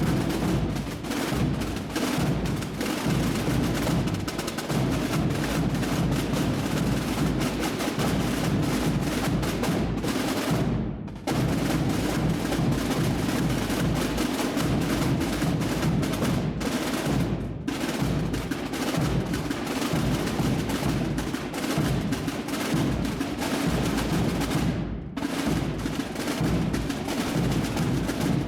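Massed Holy Week drums and bass drums of a tamborada, many played at once in a dense, continuous rolling din, with brief lulls about 11, 17 and 25 seconds in.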